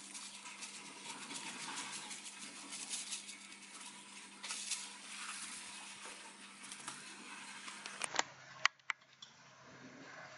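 A packet of dried parsley crinkling and rustling as it is shaken over a bowl of pasta, with a faint steady hum underneath. It stops about eight seconds in, followed by a few sharp clicks.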